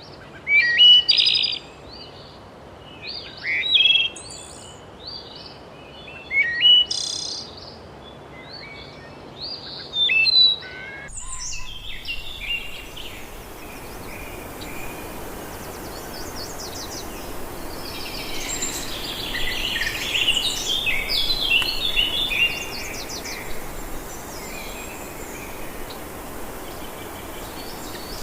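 Birdsong: a single bird repeating a short, loud song phrase about every three seconds. About eleven seconds in, the sound switches abruptly to a busier chorus of many birds calling together over a steady background hiss.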